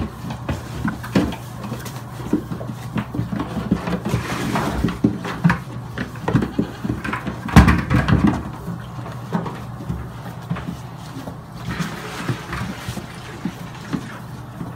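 Goat kids bleating and jostling, with irregular knocks and scuffles against a plastic bucket and a loud knock about seven and a half seconds in. A steady low hum runs underneath.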